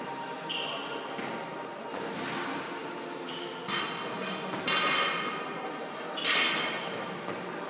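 Two people doing burpees on a rubber gym floor: thuds and shuffles of hands and feet dropping to the floor and jumping up, with three louder, noisy bursts in the second half.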